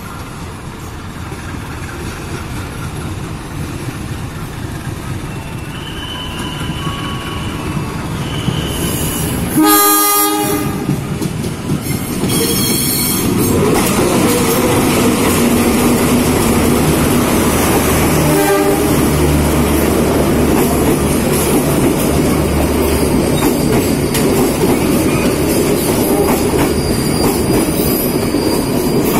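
Diesel locomotive hauling a passenger train: at first a distant rumble, then a short horn blast about a third of the way in. Later the locomotive's engine rumbles loudly as it passes close, and the coaches roll by on the rails.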